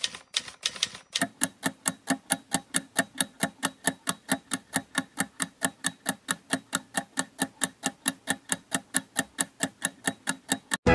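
Countdown-timer ticking sound effect: fast, even ticks, about four a second, faint for the first second and then louder, with no music under it.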